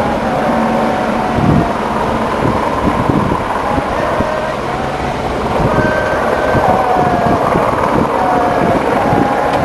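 Harbour ambience dominated by wind rumbling on the microphone, with several short, faint wavering tones scattered through it.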